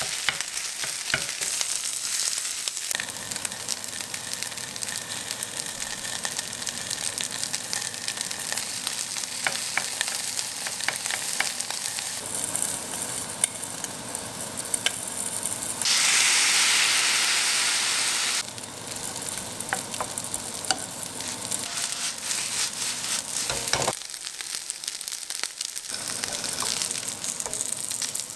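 Fried rice sizzling in a hot frying pan, stirred with a wooden spatula that scrapes and clicks against the pan. About two-thirds of the way through, a much louder hiss lasts about two seconds as sake is splashed into the hot pan, then cuts off suddenly.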